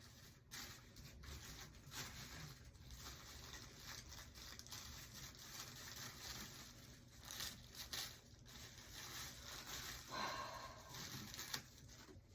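Packing material being handled: paper and packaging crinkling and rustling with many small crackles as items are wrapped for shipping.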